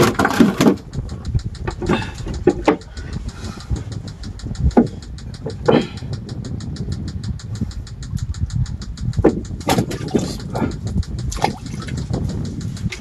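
Small boat's engine idling with a steady, even beat of about five a second, with a few separate knocks from fishing gear being handled in the wooden hull.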